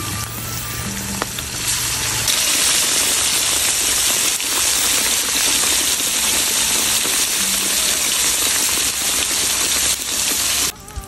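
Slabs of pork belly deep-frying in a wok of hot oil, a steady dense sizzling hiss without spattering; the oil has a spoonful of tapioca starch added to stop it spitting. The sizzle grows louder about two seconds in and cuts off abruptly near the end.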